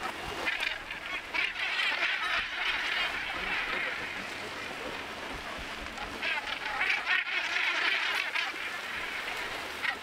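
A large flock of northern gannets calling, many harsh, croaking calls overlapping into a dense chatter that swells twice, about a second in and again near the end.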